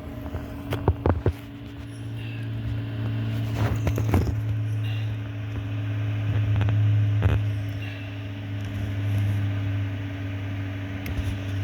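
A steady low machine hum that swells and fades in level, with scattered clicks and knocks.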